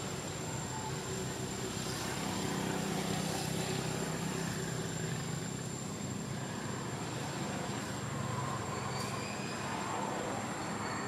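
Steady background motor-traffic noise, with a low engine hum that swells for a few seconds and then eases off.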